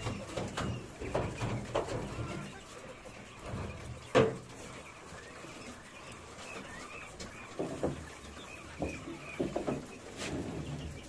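Caged quail chirping, with scraping and scattered knocks as manure trays are handled and emptied into a wheelbarrow; one sharp knock about four seconds in is the loudest.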